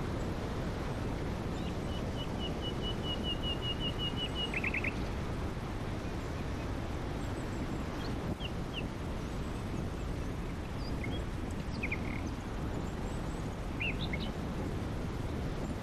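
Songbirds chirping over a steady low rumble. A rapid trill of evenly spaced notes comes about two seconds in, followed by short chirps scattered through the rest.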